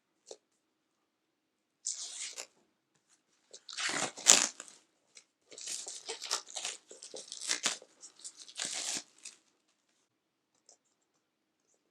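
Plastic shrink-wrap being torn off a Blu-ray box set: a series of separate tearing rips over several seconds, the loudest about four seconds in.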